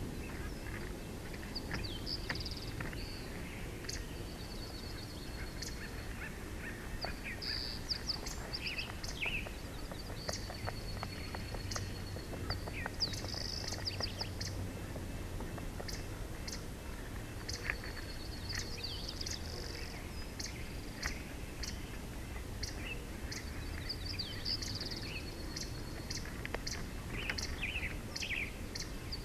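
A small songbird singing repeated high phrases, each ending in a level trill, every few seconds. Behind it runs a steady outdoor background with scattered light ticks.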